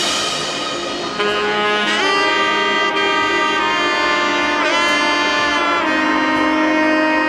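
Background music: a melody of long held notes, one note bending in pitch about halfway through, with the drums dropping out at the start.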